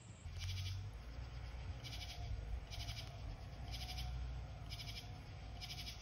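An insect calling outdoors in six short, buzzy chirps, about one a second, over a low rumble.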